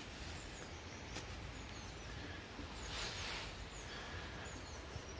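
A small bird giving short, high, falling chirps over and over, over a steady background hiss, with a brief rush of noise about three seconds in.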